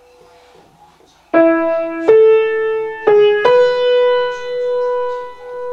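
Solo instrumental melody: after a faint held tone, notes begin about a second and a half in with a few quick changes of pitch, then one long held note that swells and dips in loudness.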